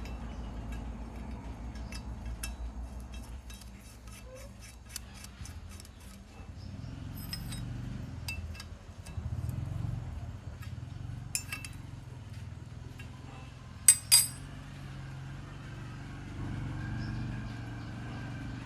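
Light metallic clicks and clinks from a metal lathe's cross-slide handles and steel swarf being worked by hand, with two sharp, loud clicks about fourteen seconds in, over a steady low hum.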